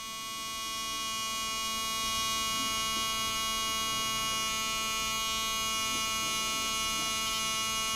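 Permanent-makeup tattoo pen buzzing steadily as its needle works pigment into the eyebrow. The buzz swells in over the first second or two and then holds even.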